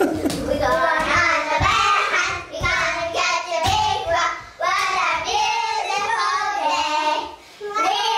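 A group of young children singing a chanted song together in short phrases.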